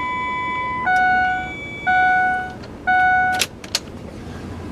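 Electronic warning chimes as a 2003 Ford F250's key is switched on: one steady beep for almost a second, then three shorter, lower chimes about a second apart, followed by a couple of sharp clicks.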